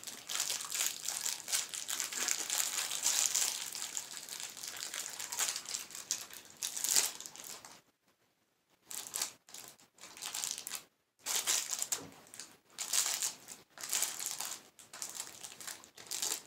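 Crinkling and crackling of a shiny candy wrapper being handled and crumpled, broken by two brief gaps of near silence about eight and eleven seconds in.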